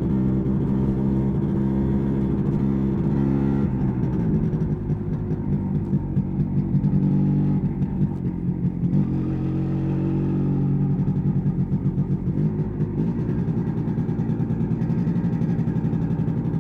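MZ ETZ 250's single-cylinder two-stroke engine running under way. It pulls steadily at first, turns to uneven pulsing off the throttle from about four seconds in, then picks up and rises in pitch again around nine seconds before settling back to steady running.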